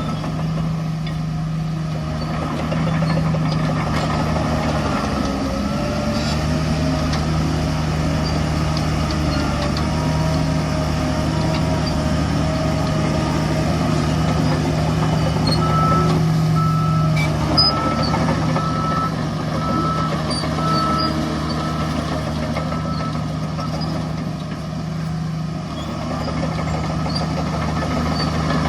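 Heavy diesel construction machinery running steadily. A reversing alarm beeps about once every two-thirds of a second for a few seconds past the middle.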